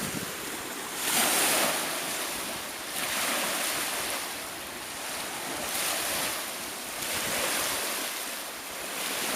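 Surf washing on a shore: a steady rushing hiss that swells louder every second or two, the biggest swell about a second in.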